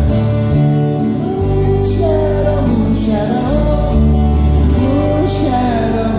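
A male singer singing live while strumming an acoustic guitar, with sustained low notes beneath that change every second or two, heard from the audience in a concert hall.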